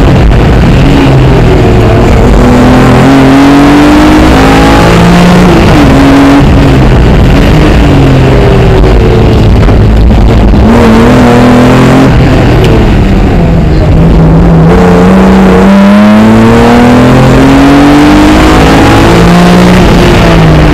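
Rally car engine heard loud from inside the cockpit at full stage pace, revving up in repeated rising sweeps that fall back at each gear change. The revs dip twice, about ten seconds in and again around sixteen seconds, as the car slows for corners, then climb again.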